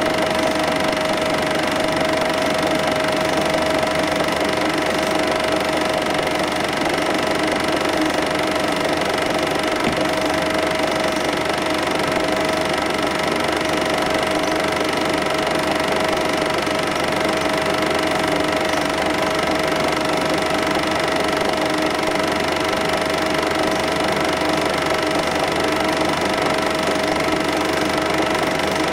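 Cine film projector running steadily, its mechanism giving a continuous whirr with a constant tone.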